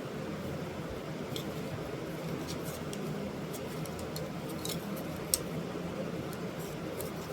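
Steady low room hum with scattered faint clicks and ticks, and one sharper click a little past five seconds in.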